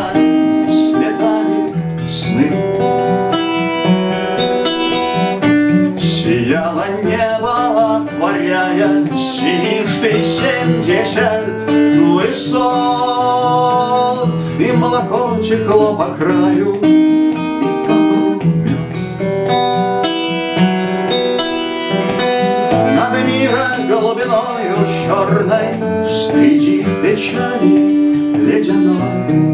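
Acoustic guitar strummed and picked, with a man singing over it: a Russian bard song.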